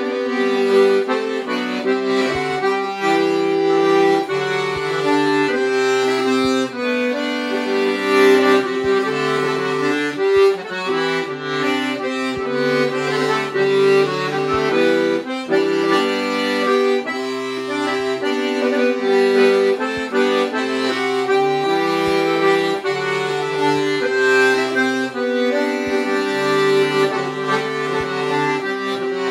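Diatonic button accordion (melodeon) playing a Morris dance tune solo: a lively right-hand melody over left-hand bass and chord notes.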